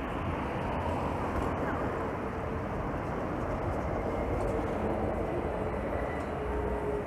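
Steady city street traffic, with an electric city bus passing close by. A faint, steady whine from the bus sits over the traffic noise.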